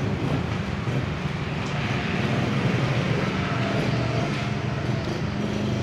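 A motor running with a steady low hum, like a vehicle engine nearby.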